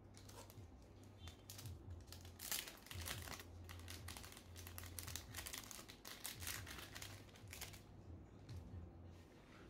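Light crinkling and rustling of a paper-and-plastic packaging sleeve handled up close as an embroidered patch is slid into it. The crackle is quick and irregular and stops about 8 seconds in, over a faint steady low hum.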